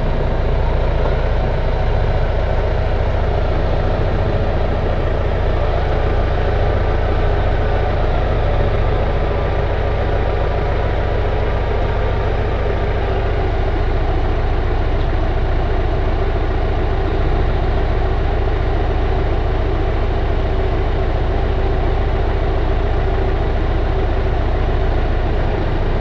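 John Deere 6220 tractor's diesel engine running steadily at low revs while the tractor backs slowly in reverse, heard through the open cab window.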